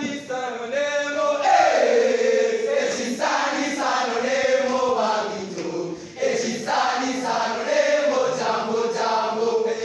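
A group of voices singing a chant together, holding long notes in phrases with short breaks about three and six seconds in.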